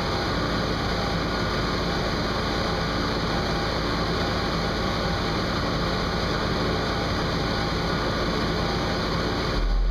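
A car audio subwoofer system doing a full-power 'burp': a steady 42 Hz bass tone at full tilt from a single subwoofer on two Sundown SAZ-2500 amplifiers, with a dense buzzing, distorted rattle spread above it. Near the end the rattle drops away abruptly while the deep tone gets stronger.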